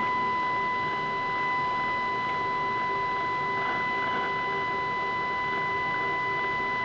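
Steady high-pitched test tone with weaker overtones over a light hiss, unchanging throughout, from the tube TV's speaker fed by a signal generator.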